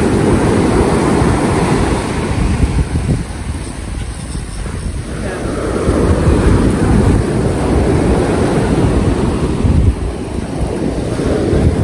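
Ocean surf breaking and washing up the beach, with wind rumbling on the microphone; the noise eases for a couple of seconds partway through.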